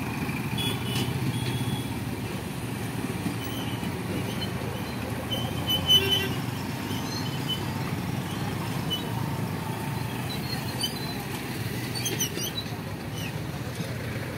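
Mixed road traffic crossing a level crossing: motorcycles, an auto-rickshaw and a bus running at low speed over a steady low rumble. Brief horn toots come now and then, the loudest about six seconds in.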